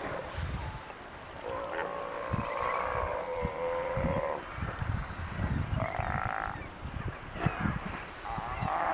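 Sea lions bellowing in a feeding crowd: long, drawn-out, cow-like calls, one lasting about three seconds and another shorter one about six seconds in, over low rumbling and thumping.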